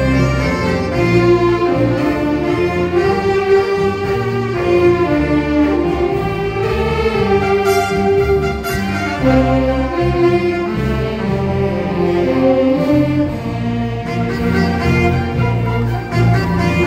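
Instrumental music: a held, sustained melody over steady bass notes, loud and unbroken.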